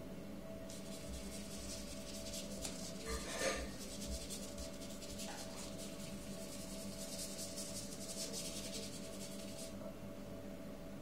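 Paintbrush bristles scrubbing across paper in quick strokes, a dry rasping hiss that stops near the end. A brief knock comes about three and a half seconds in, over a steady low hum.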